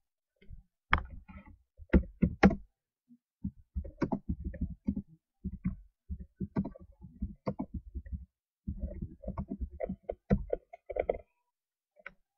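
Computer keyboard keys clicking in quick, irregular runs as a short message is typed.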